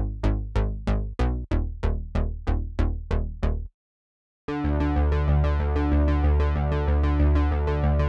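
TAL-U-NO-LX software synthesizer, a Juno-60 emulation, playing an arpeggiated bass preset: a run of short plucked notes, about three and a half a second, that stops about three and a half seconds in. After a brief pause a fuller bass patch starts, with a steady deep bass under busy higher notes.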